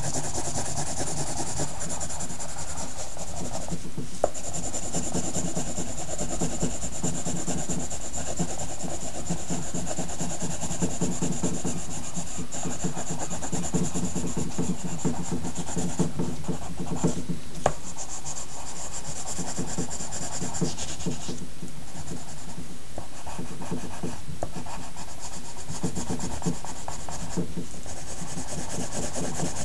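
Pencil rubbing and scratching steadily across paper as the drawing is shaded, over a steady low hum, with a few sharp ticks.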